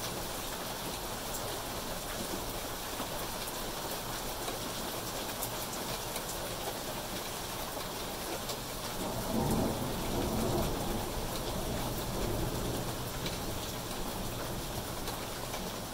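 Steady rain pattering on foliage and pavement. About halfway through, a roll of thunder rumbles for several seconds and then fades back under the rain.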